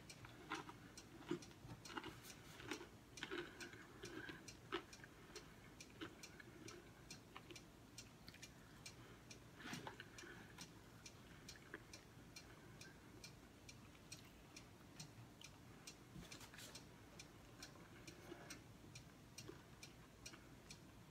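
Faint, steady ticking of a clock, evenly spaced, in a quiet room, with a few soft eating and mouth sounds now and then.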